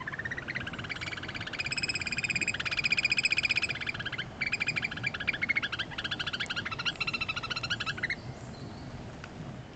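Eurasian oystercatchers piping: a long run of rapid, shrill, enthusiastic piping notes that swells to its loudest about three seconds in and breaks off about eight seconds in. This is the pair's piping display at their nest.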